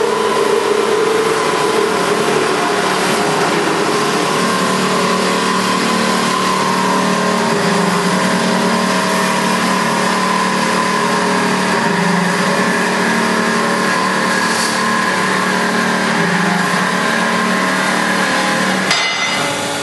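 Alligator HD620SAF heavy-duty horizontal bandsaw running a test cut through a structural steel beam: a steady machine hum with several steady tones over the hiss of the 41 mm blade cutting. The sound changes and drops slightly about a second before the end.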